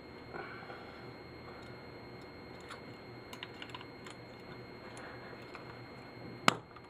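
Small scrap parts being handled by hand, with scattered light clicks and taps, then one sharp loud clank about six and a half seconds in.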